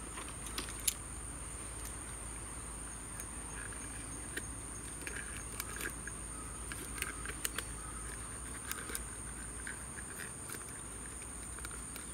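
Scattered small metallic clicks and rattles from pliers and a fish lip-grip as a swallowed lure is worked out of a snakehead's mouth, over a steady high-pitched insect drone.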